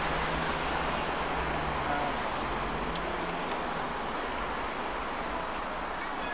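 Steady road traffic noise from cars passing on a city street, with a faint low engine hum, and a couple of faint ticks about halfway through.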